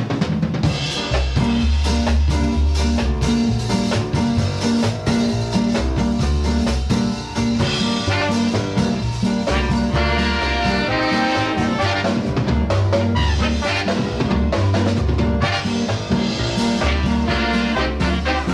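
Upbeat background music with drums, bass and brass, in a swing or ska style with a steady beat.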